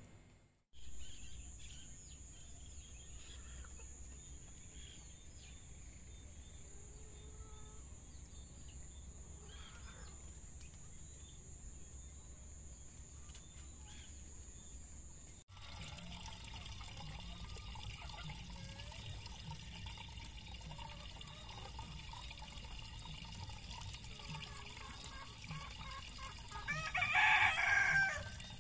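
Quiet outdoor yard background with a steady high-pitched hum through the first half, then a rooster crowing once, the loudest sound, near the end.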